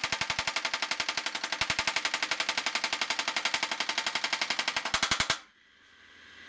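Bar-repair machine's power hammer rapidly peening the rails of a steel Stihl chainsaw bar, about a dozen metallic blows a second, then stopping suddenly about five seconds in. The hammering flattens the bar's worn, rolled-over rail edges.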